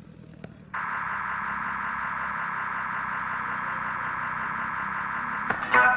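Steady static-like hiss in the middle range, switching on suddenly under a second in and holding at an even level, until music with a beat comes in loudly near the end.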